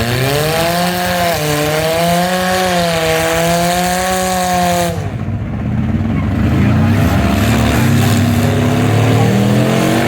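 Demolition derby car engines revving hard and running under load, the pitch wavering up and down. About halfway through the sound dulls briefly, then an engine revs up again, rising in pitch near the end.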